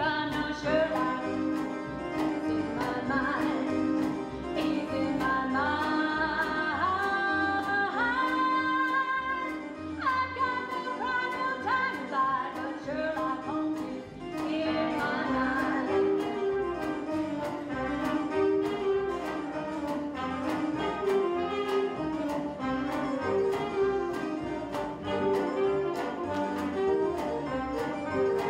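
Live pit orchestra playing a show tune with a steady beat, bowed strings among the instruments.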